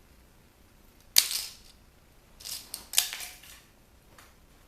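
Hard salvaged parts, such as circuit boards, being handled and set down on a work surface: one sharp clack about a second in, then a small clatter of lighter clicks around three seconds.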